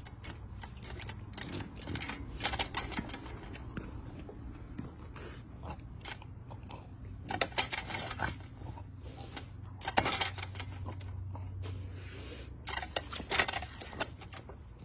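Irregular clicks and taps coming in short clusters every few seconds, over a steady low hum.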